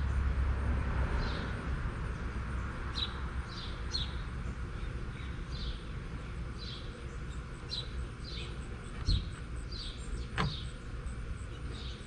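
A small bird chirping repeatedly, short high chirps falling in pitch at about one a second. A low rumble fades out within the first two seconds, and a soft thump about nine seconds in is followed by a sharp click a second later.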